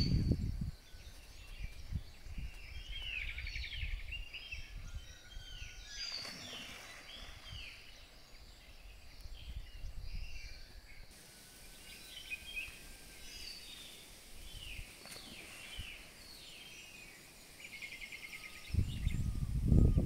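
Several wild birds singing and calling: repeated short arching whistled notes and a couple of fast trills, over a faint outdoor background. A low rumble sits under the first second and comes back strongly near the end.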